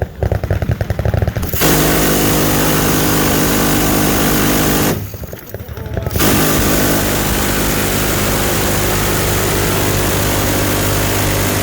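Machine-gun fire: quick separate shots for the first second and a half, then two long continuous bursts from a gun firing so fast that the shots merge into a steady buzz. The first burst lasts about three seconds and the longer second one comes after a break of about a second.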